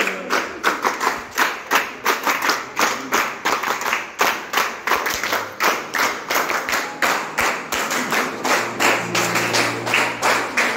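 A group of people clapping in unison, a steady beat of about three claps a second.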